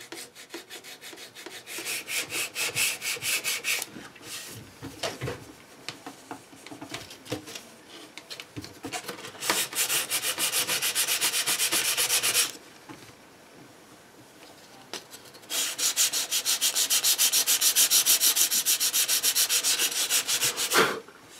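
Sandpaper rubbing back and forth over hardened Bondo body filler patched into a Bakelite radio case, in three spells of quick, even strokes, about five a second, with quieter scraping between.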